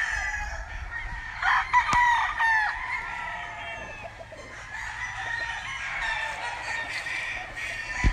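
Many gamecocks crowing at once, their calls overlapping, with a cluster of loud crows about one and a half to two and a half seconds in.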